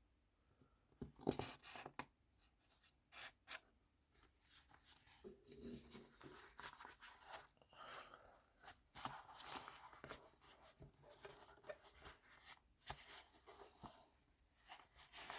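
An old cloth tool roll being handled and rolled up with metal wrenches inside: rustling and scraping of the fabric with light clinks and taps of the wrenches. There are a few sharp taps about a second in, then fairly steady rustling with scattered clicks.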